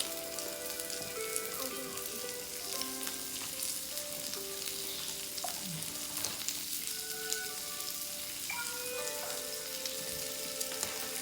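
Pork belly (samgyupsal) sizzling steadily in its rendered fat on a hot skillet, with fine crackles.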